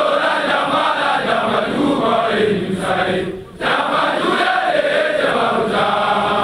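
A group of voices chanting a song together in unison, breaking off briefly about three and a half seconds in before starting again.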